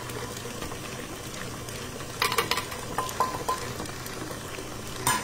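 Stand mixer running steadily, its beater working softened cream cheese and butter in a stainless steel bowl, with a few short metallic clinks about two seconds in and again near the end.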